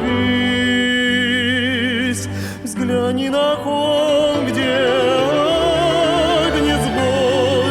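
Christian song: voices holding long notes with a wide vibrato over instrumental accompaniment, with a short break in the held notes about two and a half seconds in.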